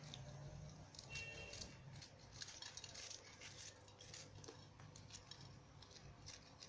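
Faint, irregular scrapes and small clicks of a kitchen knife cutting into green chillies and scraping out their seeds.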